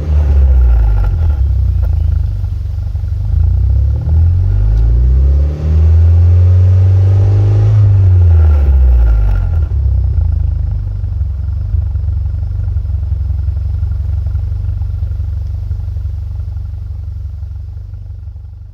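Mitsubishi Lancer Evolution X's turbocharged 2.0-litre inline-four exhaust, blipped up and down several times, then settling to a steady idle that fades out toward the end.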